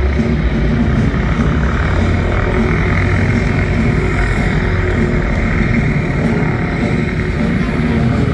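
Engine running with a loud, steady drone.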